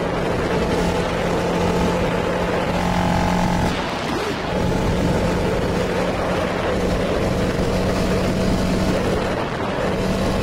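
Honda CBR 250cc motorcycle engine running at a steady cruise with wind rushing past the rider, easing off briefly about four seconds in and again near the end.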